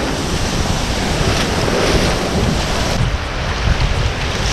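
Sea surf breaking and washing on a beach, waves coming in one after another, with heavy wind rumbling on the microphone.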